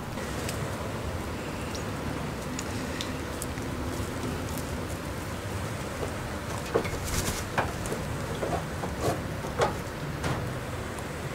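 Steady rain pattering down. From about six to ten seconds in, a run of sharp taps and knocks stands out over it.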